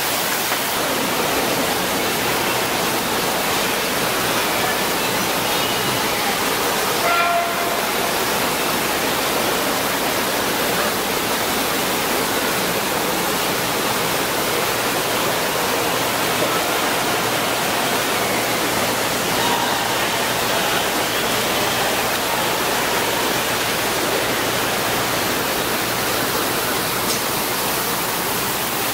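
A steady, even hiss like rushing air or water, with no rhythm and no change. It is the background noise of a large mall atrium while a crowd stands silent. A faint voice is heard briefly about seven seconds in.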